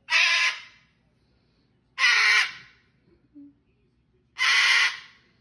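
Cockatoo screeching three times, each a harsh call about half a second long, roughly two seconds apart.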